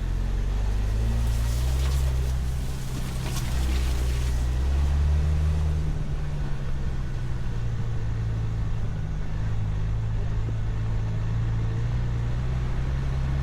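Ford Bronco's engine running under load while towing a camper up a rocky off-road trail, its pitch rising and falling as the revs change. A brief hiss a couple of seconds in.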